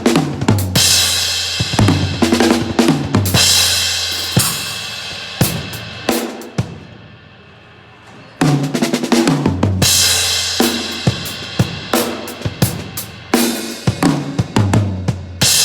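Drum kit played with bass drum, snare and cymbals. About six seconds in the playing stops and a cymbal rings down, then the kit comes back in hard about eight and a half seconds in.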